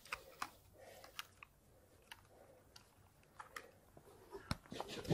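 Faint, irregular small clicks and soft rustles of handling, with a few louder clicks near the end.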